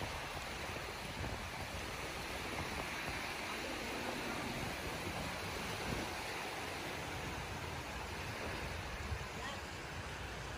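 Small waves washing in over a flat sandy beach: a steady, even hiss of surf.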